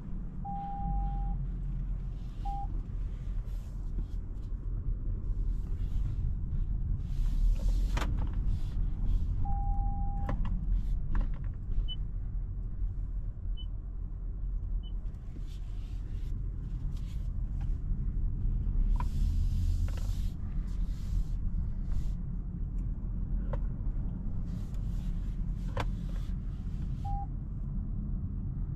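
Steady low road and drivetrain rumble of a Toyota Corolla Cross being driven, with swells of tyre and road hiss. A few short electronic beeps and scattered light clicks sound over it.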